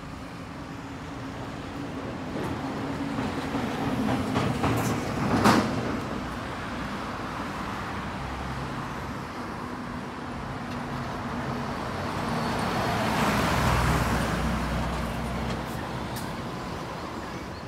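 Road traffic on a city street: a vehicle passes close by about five seconds in, and a heavier one with a deeper rumble passes around thirteen to fourteen seconds in.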